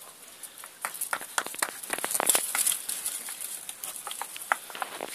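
Puppies rummaging at a plastic multipack of food tubs: rapid, irregular crackling and clicking of plastic, starting about a second in.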